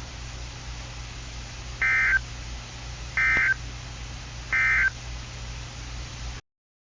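Emergency Alert System end-of-message code on NOAA Weather Radio: three short bursts of two-tone digital data screech, about a second and a half apart, over a steady low hum and hiss, signalling the end of the alert. The audio cuts off about six and a half seconds in.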